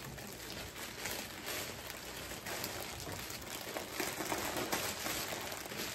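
Plastic mailer bags and wrapping rustling and crinkling in a dense run of small crackles as packages are opened by hand.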